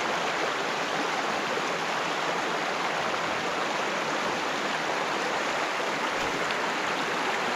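Shallow river water rushing over a gravel riffle: a steady, even rush of flowing water.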